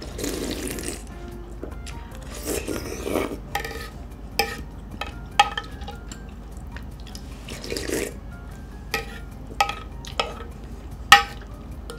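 Ramen noodles slurped three times, with chopsticks clicking sharply against a ceramic bowl about six times in between, over faint background music.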